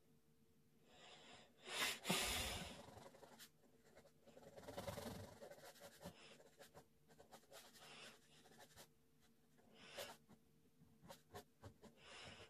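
Ballpoint pen scratching across paper in hatching strokes, faint. There is a louder rustling scrape about two seconds in and another around five seconds, then a run of short, quick separate strokes.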